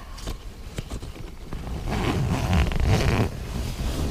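Rustling of a bivy bag's fabric with a zipper-like rasp, louder about two seconds in.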